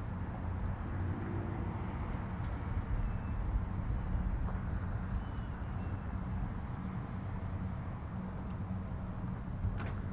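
Car engine running at low speed with steady road and cabin rumble from inside the car as it creeps through a toll lane. A single short click near the end.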